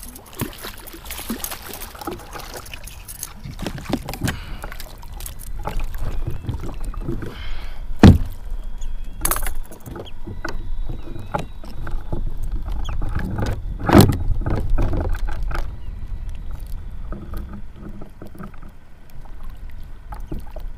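A hooked jack crevalle splashing beside a plastic fishing kayak as it is landed, with scattered knocks and clatter of handling and gear against the hull. Two loud thumps stand out, about eight and fourteen seconds in.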